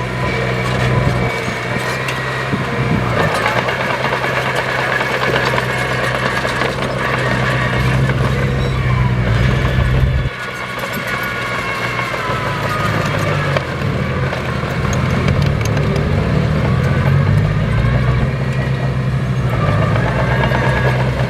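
Heavy diesel construction machinery running steadily; the engine note changes abruptly about halfway through.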